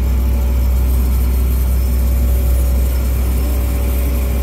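Steady low mechanical rumble with a faint constant hum above it, from machinery at a CNG filling station during refuelling.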